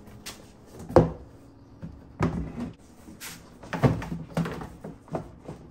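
Plastic inner fender liner knocking and scraping against the wheel arch as it is fitted into the wheel well, a series of irregular hollow knocks and clatters, the sharpest about a second in.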